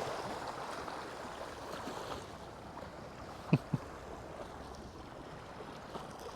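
Steady wash of waves and wind along the shore, with two short falling squeaks about three and a half seconds in.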